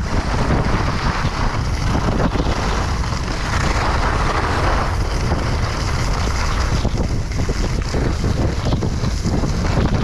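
Wind buffeting the microphone of a chest-mounted GoPro on a skier moving fast downhill: a steady, heavy rumble with a rushing hiss, mixed with skis running on snow, swelling briefly about four seconds in.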